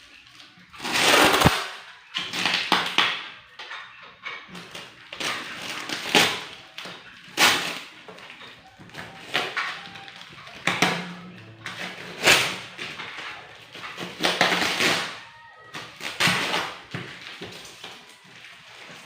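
Box packaging being handled and opened: a string of short rustling, scraping and tearing noises at irregular intervals, about a dozen in all.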